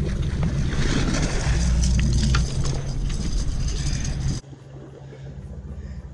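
A game-fishing boat's engines humming steadily under a loud rush of wind and water while a fish is brought aboard. About four seconds in, the sound drops abruptly to a quieter engine drone.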